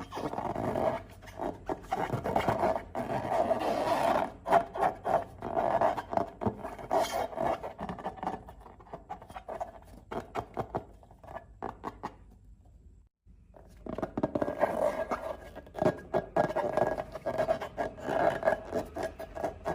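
Slime being mixed and squished by hand: a dense run of small wet clicks and crackles that stops for about a second around two-thirds of the way through, then starts again.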